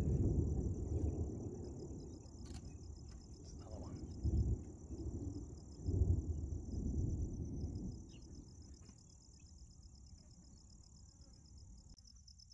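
Insects chirping in a steady, fast-pulsing high band throughout, under a low rolling rumble of distant thunder from the storm that fades over the first two seconds, swells again about four and six seconds in, and dies away about eight seconds in.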